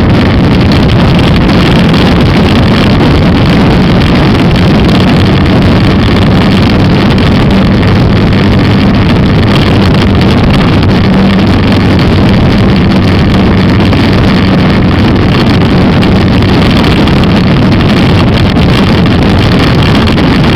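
Skua 250 single-cylinder motorcycle engine running at a steady speed while riding, with wind noise on the microphone.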